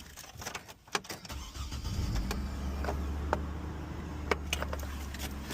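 Chevrolet Trailblazer engine starting a little over a second in, then idling steadily. A few sharp clicks come before it starts and now and then over the idle.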